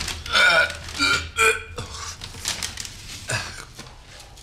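A man gagging and dry-heaving at the smell of a cat litter box: three loud retching heaves in the first second and a half, then a shorter one about three seconds in.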